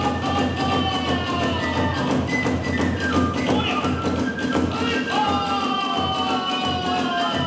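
Kagura hayashi accompaniment: a bamboo flute playing long notes that slide slowly downward, over a fast, steady beat of drum and hand cymbals.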